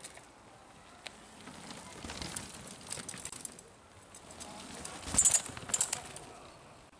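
Cross-country mountain bikes passing on a dirt forest trail: tyres on the dirt and rattling clicks from the bikes. The loudest are two short bursts of sharp clicking about five and six seconds in.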